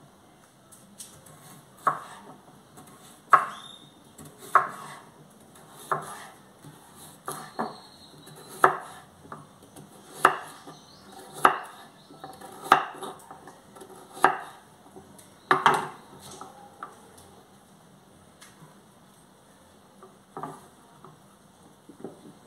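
Kitchen knife chopping carrots on a wooden cutting board: slow, separate cuts about once a second, thinning out to only one or two more in the last third.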